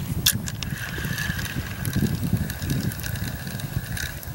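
Spinning reel being cranked steadily, its gears giving an even whir that stops near the end, after a couple of sharp clicks at the start. A low rumble runs underneath.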